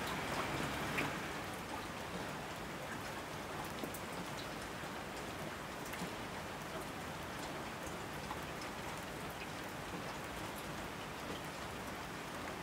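Steady rain falling, a continuous hiss with scattered individual drops ticking on surfaces, a little fuller in the first second or so.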